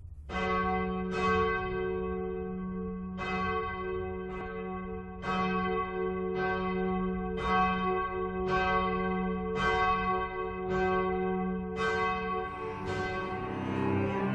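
Church bell ringing: about a dozen irregular strokes roughly a second apart, each ringing on into the next.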